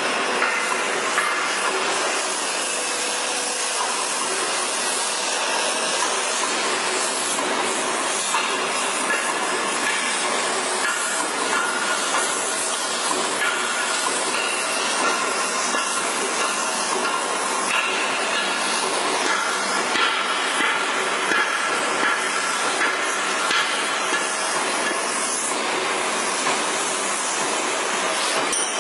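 Heavy CNC machine tool cutting metal: a steady, dense hissing noise with faint high squealing tones that shift every few seconds.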